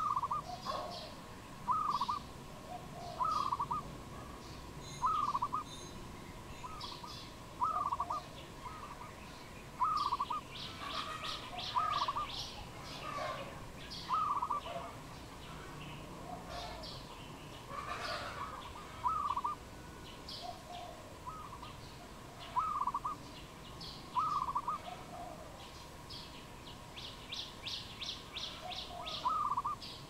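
Dove calling, a short rising-and-falling note with a lower note after it, repeated about every second and a half. Small birds chirp over it, with two quick trills, one about ten seconds in and one near the end.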